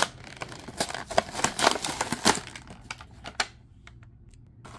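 Clear plastic blister packaging of a carded action figure crinkling and cracking as it is pried and peeled off its cardboard backing: a quick, irregular run of sharp clicks and crackles that stops about three and a half seconds in.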